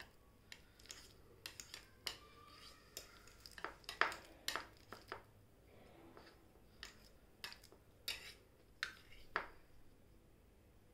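A utensil tapping and scraping irregularly against a bowl while half a banana with honey is mashed into a paste; the loudest tap comes about four seconds in.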